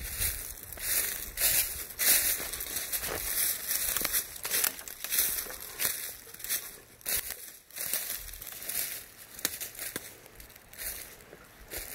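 Footsteps crunching through dry fallen leaves on a forest floor, one step about every half second to a second, quieter near the end.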